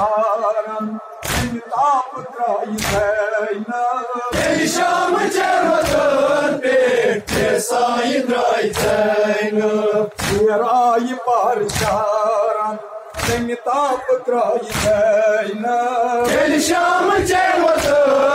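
A crowd of men chanting a noha, a mourning lament, in unison, with a sharp slap of unison chest-beating about every second and a half.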